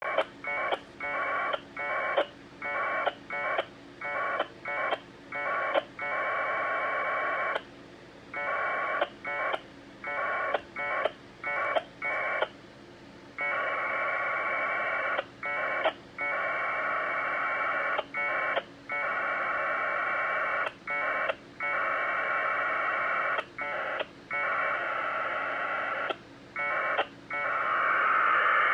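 1200 baud Bell 202 AX.25 packet radio data from UHF two-way radios: warbling two-tone data bursts, many short ones cut by brief gaps, with several longer stretches of a few seconds. This is a Winlink email transfer in progress over the air.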